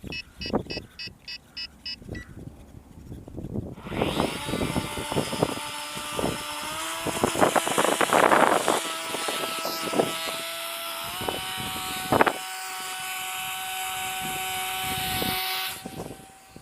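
A rapid string of about eight short electronic beeps, then the RC Cessna's electric motor and propeller spin up with a steady whine that steps higher in pitch partway through and cuts off suddenly near the end. Scattered knocks and clicks run throughout.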